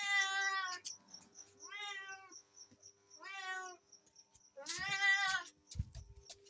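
A cat meowing four times, each meow short and clear with a slight rise and fall in pitch. A brief low thump comes near the end.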